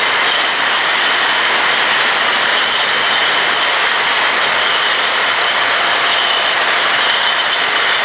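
Automatic beer bottle washing machine running: a steady, loud hiss of water spray mixed with the mechanical rattle of the bottle conveyor.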